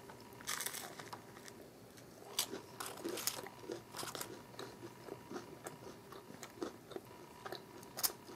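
Eating sounds of battered fried chicken: a plastic fork picking in a styrofoam takeout box, then crunching and chewing on a bite, heard as scattered crisp clicks and crackles.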